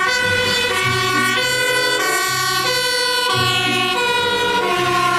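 Fire-engine siren sound, switching between a higher and a lower tone about every half second. It runs loud over background music and starts and cuts off abruptly.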